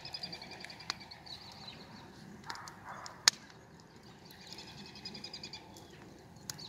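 A songbird sings a run of rapid high notes, twice. A few sharp clicks are mixed in, the loudest about halfway.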